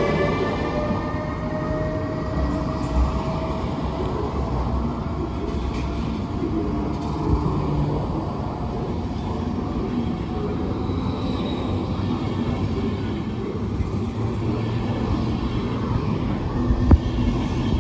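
Passenger coaches of a train gathering speed roll past on the rails: a steady rumble with a few wheel knocks, the loudest near the end. In the first second or so the rising whine of the Siemens Vectron electric locomotive's traction drive fades away as it accelerates off.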